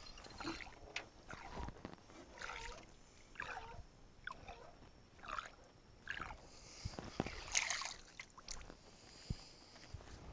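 Water splashing and sloshing in short bursts, about one a second, as a cloth is dipped into the river beside an aluminium boat. A few light knocks sound in between.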